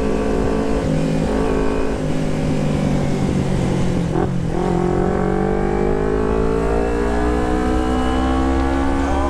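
Carbureted Kawasaki Ninja 250 parallel-twin running through an aftermarket Termignoni exhaust while riding. The engine note holds fairly steady, breaks briefly about four seconds in, then climbs steadily in pitch as the bike accelerates.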